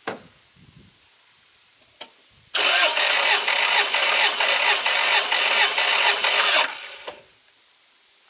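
Starter motor cranking a 16-valve four-cylinder engine with its spark plugs removed for about four seconds, a pulse about three times a second over a whine, while cylinder one pumps up a compression gauge. The engine does not fire. A click comes just before the cranking begins.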